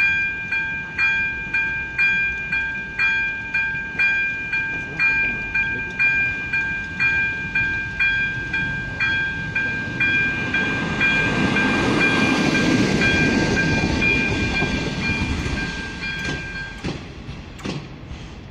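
AŽD 97 level-crossing warning bell ringing about twice a second while a diesel railcar passes over the crossing, the train loudest about two-thirds of the way through. The bell stops shortly after the train clears, and a few sharp clacks follow near the end.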